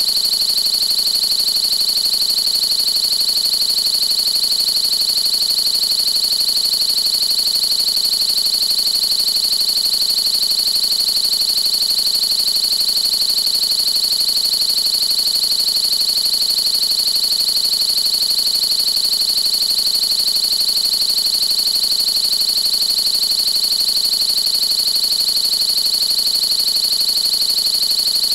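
A steady, unchanging high-pitched electronic tone, with a fainter, even higher tone above it and a faint hiss beneath. It is a synthesized drone played without a break.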